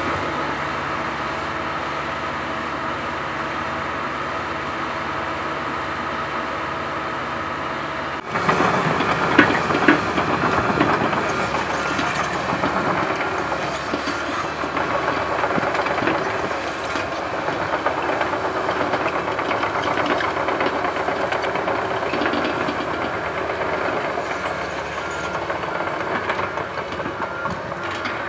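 Komatsu PC130 hydraulic excavator working: its diesel engine runs steadily, then about eight seconds in the sound changes abruptly to a louder, rougher run with scattered clanks of the machine working soil.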